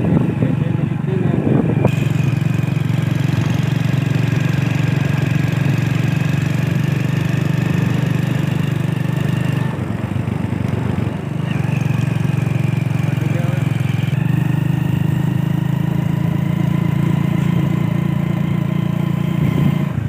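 Motorcycle engine running steadily while riding. It eases off briefly about halfway through, then picks up again.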